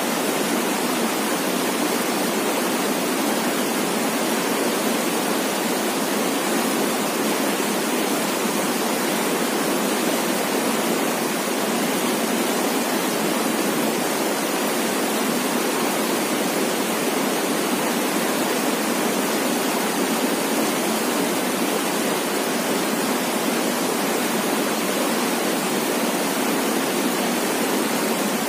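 Fast, shallow river rushing over rocks in rapids: a steady, unbroken rush of water.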